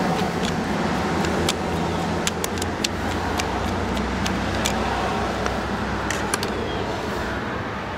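Scattered light metallic clicks and ticks of a long flathead screwdriver turning a small brass jet out of a Yamaha 25 hp four-stroke outboard's carburetor, over a steady low rumble of background noise that swells in the middle.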